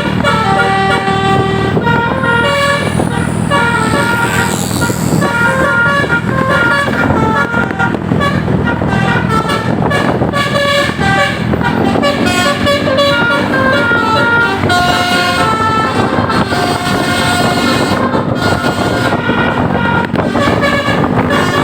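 Bus telolet basuri horn, a set of musical air horns, playing a quick melody: several horn tones sound together and step to new notes in short blasts, without a break. From about halfway on, a lower horn note holds steady under the tune.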